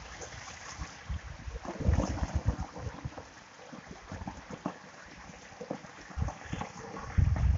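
Sheet waterfall from a pool's stone water feature splashing steadily into the swimming pool, with wind gusts buffeting the microphone, loudest about two seconds in and near the end.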